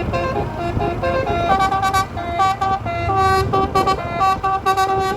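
Telolet multi-trumpet air horn, a twelve-note set, playing a quick melody of short held notes that step up and down in pitch, over a low rumble.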